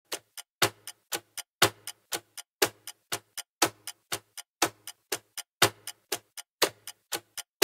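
Clock ticking, about four ticks a second with a louder, deeper tick once each second.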